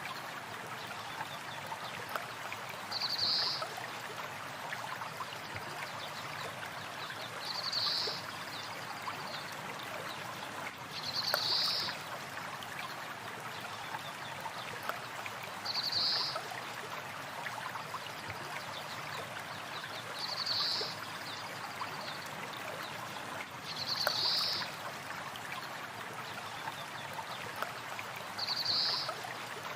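A stream flowing steadily, with a short high bird call repeating about every four seconds.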